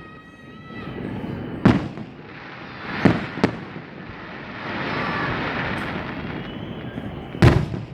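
Aerial firework shells bursting with sharp cracks that echo: one a couple of seconds in, two close together about three seconds in, and a loud one near the end.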